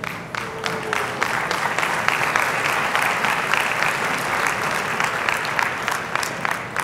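Audience applauding, many hands clapping at once. It starts suddenly and dies away near the end.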